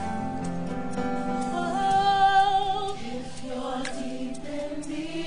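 Worship song playing over sustained accompaniment, with a singer holding a long note with vibrato that is loudest about halfway through.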